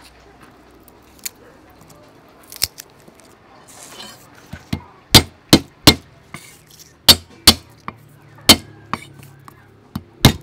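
Cleaver striking a wooden chopping board over garlic cloves: a series of sharp, irregular knocks, weak and sparse at first, then about eight loud ones in the second half.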